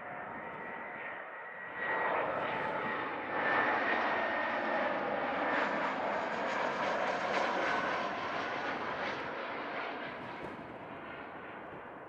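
Jet airliner passing close by: engine noise with steady high whining tones. It swells sharply about two seconds in, is loudest mid-way and fades toward the end.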